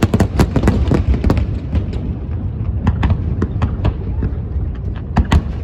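Aerial fireworks bursting in rapid succession: many sharp cracks and bangs, some in quick clusters, over a steady low rumble.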